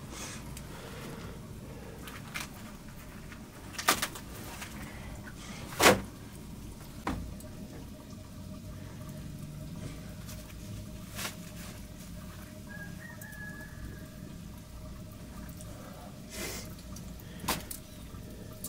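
Scattered sharp clicks and knocks over a low steady background, the loudest about six seconds in, with a brief faint high chirp a little past the middle.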